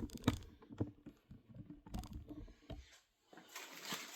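Handling noise: scattered light clicks and taps as packaging is moved by hand, with a brief drop to silence about three seconds in, then a faint hiss.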